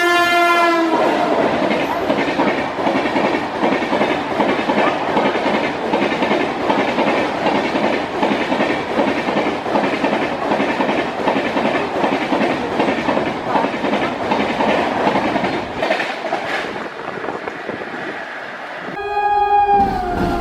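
Indian Railways Humsafar express train passing at high speed: a locomotive horn blast ends about a second in, then the coaches rush past with fast clickety-clack of wheels over rail joints. A horn sounds again near the end, dropping slightly in pitch.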